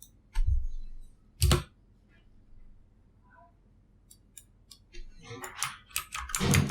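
Computer keyboard keystrokes and mouse clicks: a few separate clicks, a louder one about a second and a half in, then a quicker run of keystrokes near the end.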